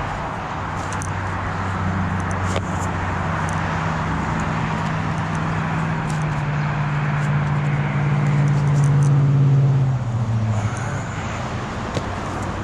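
A motor vehicle's engine running close by, growing steadily louder until about nine and a half seconds in, then falling away sharply, with a few light clicks over it.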